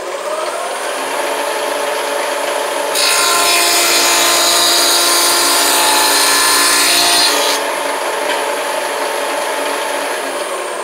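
Shopsmith spinning a dado blade: the motor's whine climbs as it comes up to speed. From about three seconds in to about seven and a half seconds in, the blade cuts a groove through a scrap board, much louder and noisier. It then spins free again and begins to wind down near the end.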